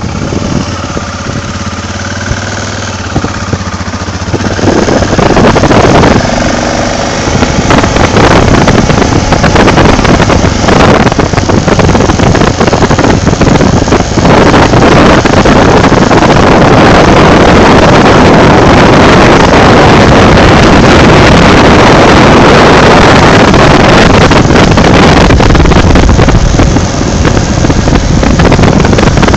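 Motorcycle riding along at speed: the engine's low hum under heavy wind buffeting on the microphone. The wind noise rises sharply about five seconds in and stays very loud and distorted.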